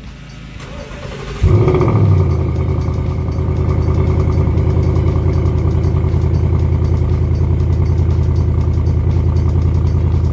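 Ford Mustang GT's 5.0 V8 being started: the starter cranks for about a second and a half, the engine catches with a sudden loud flare, then settles into a steady, deep idle through its exhaust.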